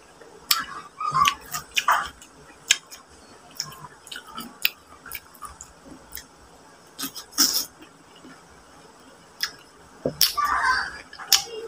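Close eating sounds of a cooked mud crab being eaten by hand: irregular sharp clicks, smacks and crackles of chewing and of meat being picked from the shell, with a short lull about two thirds through.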